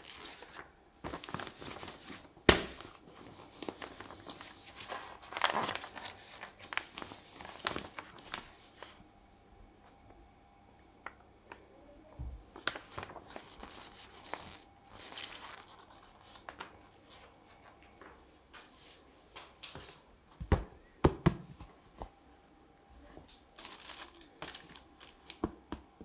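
Paper game pieces being handled: the board-game rules sheet and the printed game board are unfolded and moved, giving irregular rustling and crinkling. There is a sharp knock about two and a half seconds in and a couple of dull thumps near the end.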